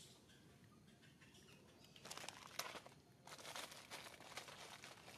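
Faint crinkly rustling in two spells, the first starting about two seconds in with one sharp crackle, the second starting a little after three seconds in.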